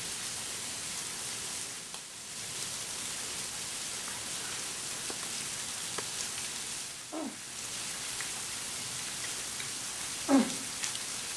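A steady hiss of background noise, with two short falling voice-like cries about two-thirds through and near the end, the second the loudest.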